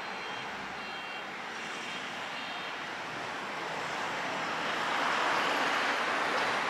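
An approaching electric train, its running noise growing steadily louder from about halfway through. Early on, a short high beep repeats about once a second, then stops.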